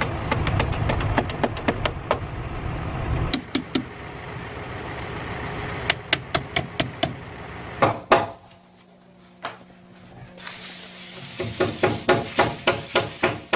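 Fast, evenly spaced knocking, about five blows a second, in several runs. An engine runs underneath and stops about three seconds in. A single louder knock comes about eight seconds in, then a short quieter stretch before the fast knocking starts again.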